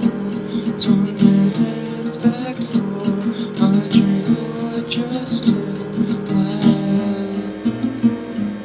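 Acoustic guitar music, plucked and strummed, with no singing in this passage.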